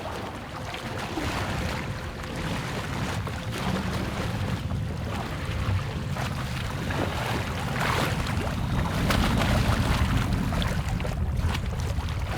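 Wind and water noise aboard an ocean-racing sailing yacht: a steady low rumble with gusts on the microphone and a few scattered knocks.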